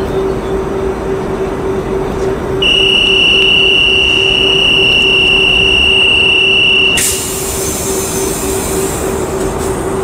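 Recorded sound of a real NS Koploper electric multiple unit standing at a station: a steady hum with a pulsing low tone. About a third of the way in, a loud steady high tone starts, holds for about four seconds, then stops sharply with a short hiss.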